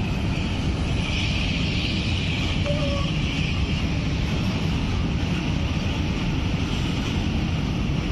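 Indian Railways freight train of open box wagons rolling past at close range: a steady rumble of steel wheels on the rail with a hiss of rail noise over it.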